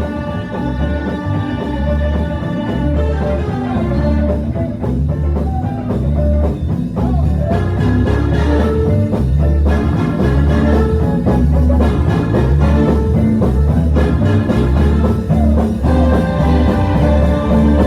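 Gospel band playing an instrumental passage, with guitar over a steady, pulsing bass line.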